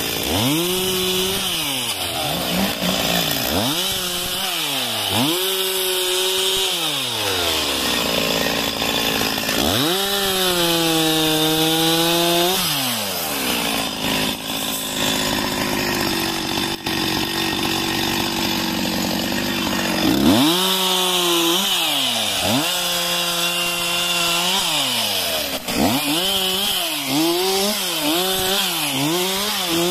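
Stihl chainsaw cutting up a felled tree's trunk and branches, revving up into each cut and dropping back to idle again and again. There is one long high-speed cut about ten seconds in, and quick short revs near the end.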